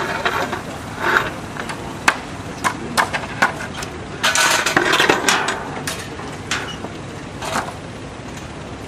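Irregular knocks and clatter of a wooden construction palisade being taken down, with a denser run of rattling clatter about halfway through.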